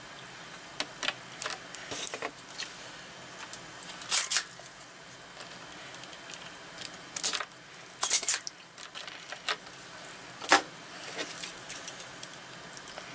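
Irregular clicks, taps and light metallic rattles of small tools being handled at a soldering bench while a surface-mount part on a circuit board is reworked. The loudest come about four and eight seconds in.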